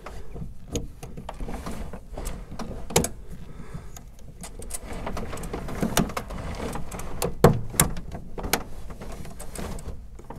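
Sliding canopy of a Titan T-51 being pushed back by hand: scattered, irregular clicks, knocks and rattles, the loudest about three seconds in and again at about seven and a half seconds.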